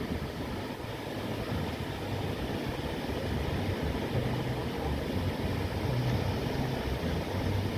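Steady rush of small surf breaking on a sandy beach, with low wind rumble on the microphone.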